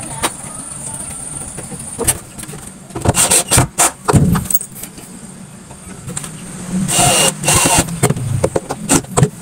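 Carpentry work on a wooden wardrobe door frame: a series of sharp knocks and clattering taps on wood and metal hardware, with a dense run of knocks about three seconds in and a short noisy burst about seven seconds in, over a steady low hum.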